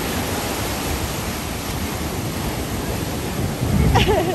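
Ocean surf and wind on the microphone: a steady, loud rush of noise, swelling into a louder low surge near the end, with a brief wavering voice cry over it.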